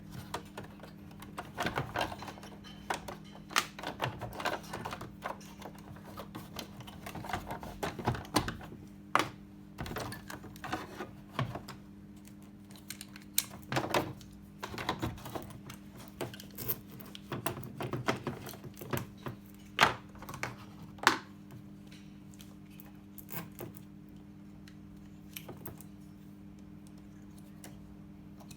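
Irregular clicks, taps and knocks of tools and hands working on the plastic control panel and timer of a semi-automatic washing machine, over a steady low hum. The clicking thins out after about twenty seconds.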